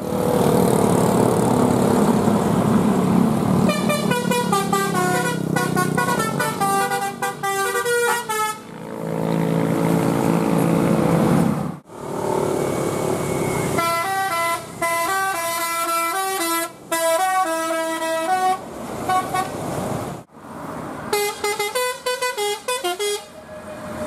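Bus 'telolet basuri' multi-tone musical horns playing quick melodic runs of stepped notes, sounding three times, with a bus engine running underneath during the first half.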